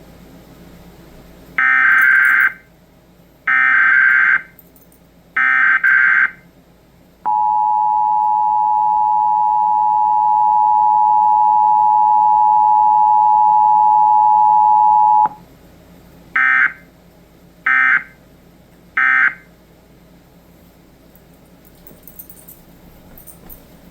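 Emergency Alert System monthly test tones: three screeching bursts of SAME header data, then the two-tone attention signal held steady for about eight seconds, then three short end-of-message data bursts.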